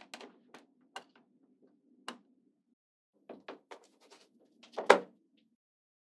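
Small magnetic balls and a plastic window frame clicking and tapping as they are pressed into place by hand, about a dozen scattered clicks with the loudest snap about five seconds in. A faint low rubbing runs under the clicks until shortly before the end.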